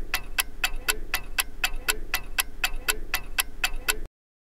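Clock-ticking sound effect timing a countdown, about four quick ticks a second with a lower knock once each second, cutting off abruptly near the end as the count reaches zero.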